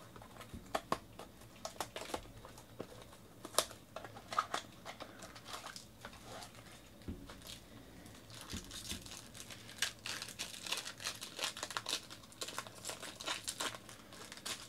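Foil wrapper of a baseball card pack crinkling and tearing as it is pulled open by hand. Scattered sharp crackles at first, growing into dense crinkling in the second half.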